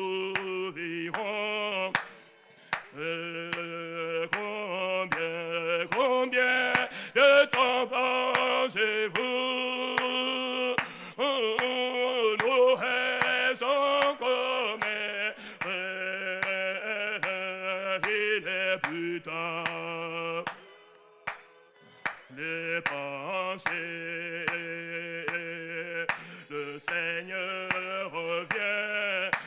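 A congregation sings a French hymn led by a man's voice, with hand clapping keeping the beat. The singing breaks off briefly about two seconds in and again about two-thirds of the way through, between lines.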